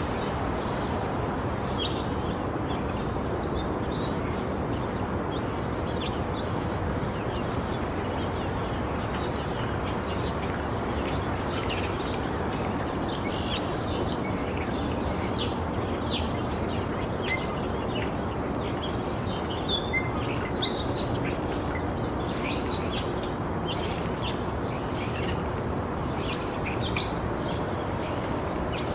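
Daytime residential ambience: small birds chirping over a steady low traffic rumble. The chirps come thicker partway through.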